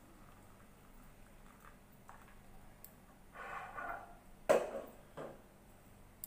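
Reheated milk poured from an aluminium pot into a ceramic mug, mostly faint, with a short splashing rush a little past three seconds in. About four and a half seconds in comes a sharp metal knock as the pot is set down, then a lighter knock.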